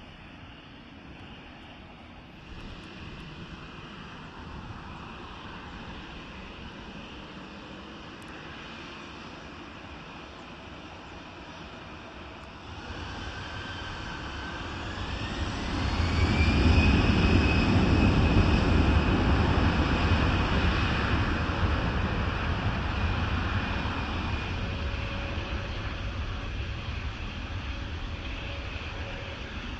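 Jet airliner engines spooling up: a whine rises in pitch about halfway through and then holds steady. A deep rumble swells with it to a loud peak, then slowly fades.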